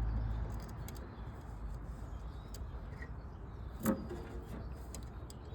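Faint clicks and handling noise of a cable terminal being worked onto a mower starter solenoid's stud, with one sharper click a little before four seconds in.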